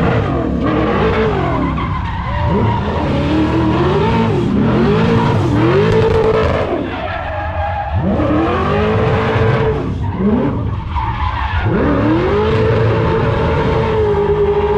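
A car doing donuts: its engine revs up, holds high and drops again over and over, every few seconds, over a continuous hiss of spinning, skidding tyres.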